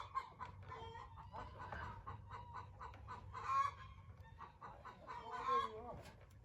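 Chickens clucking, with a few louder calls near the start and about three and a half and five and a half seconds in.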